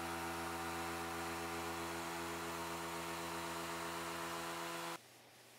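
Mirka random orbital sander running steadily on a cherry tabletop during its final 240-grit sanding: an even hum with a hiss of sanding. It cuts off suddenly about five seconds in, leaving faint room tone.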